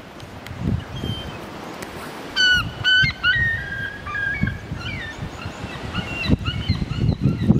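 Gulls calling: two loud, clear calls about two and a half seconds in, followed by a run of shorter calls that slide in pitch. Wind rumbles on the microphone underneath, heavier near the end.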